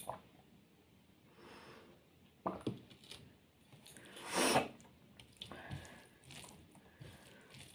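Eating noises: fingers squishing and mixing rice with curry on a steel plate, with soft chewing and a few small clicks and knocks. About four and a half seconds in there is a short breathy rush, the loudest sound in the stretch.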